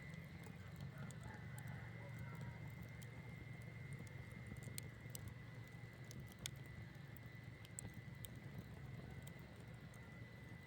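Campfire burning with a low steady rumble and scattered sharp crackles and pops from the wood, the loudest pop about six and a half seconds in.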